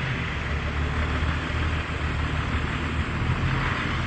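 Diesel engines of heavy earthmoving machinery, an excavator and a dump truck, running steadily as a low, even drone.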